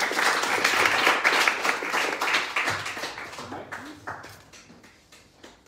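Small audience applauding, the clapping dense at first, then thinning out and dying away over about five seconds.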